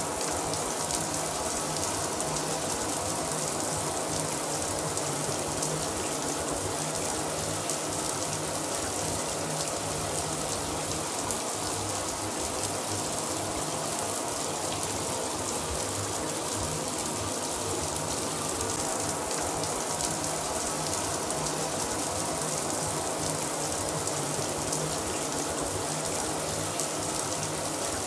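Shower running steadily, water spraying from the head and splattering in an even hiss.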